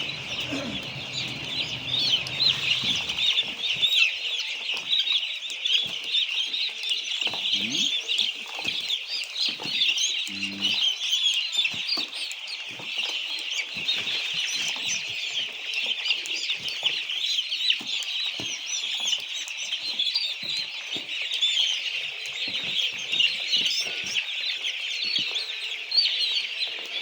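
A large flock of chickens in a poultry house, peeping and chirping nonstop in a dense, high-pitched chorus, with occasional faint knocks.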